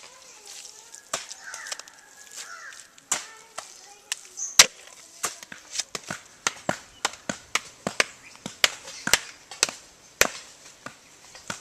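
A flat wooden beater slapping the face of a freshly built earthen mud wall, compacting the earth. Repeated sharp strikes, scattered at first, then steady at about two a second from a few seconds in.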